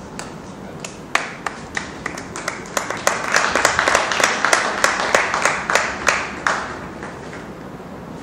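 Scattered applause from spectators: a few separate claps, building into a short burst of clapping about three seconds in, then dying away.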